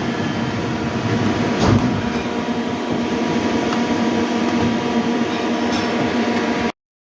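Hyundai HIT 8 S CNC lathe running with a steady mechanical hum and several steady tones, with a single knock about two seconds in. The sound cuts off abruptly near the end.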